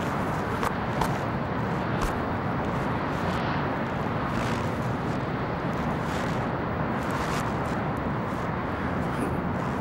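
Steady city street background noise, a low rumble of traffic, with a few faint brief scuffs scattered through it.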